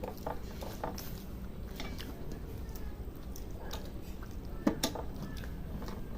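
Close-up eating sounds: chewing and soft squishing of food, with scattered small clicks and one sharper knock about three-quarters of the way through, over a low steady hum.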